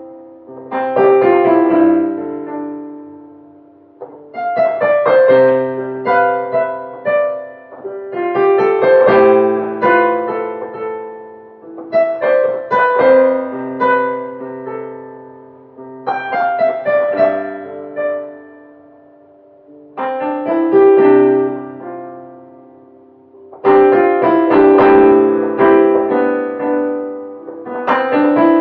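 Digital piano playing slow phrases of chords and melody; each phrase starts with firmly struck notes about every four seconds and then dies away.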